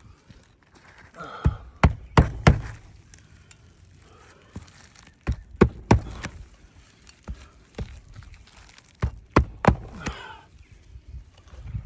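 Sharp knocks and thuds of roofing work on asphalt shingles, struck in quick pairs and threes, with brief scraping near the start and near the end.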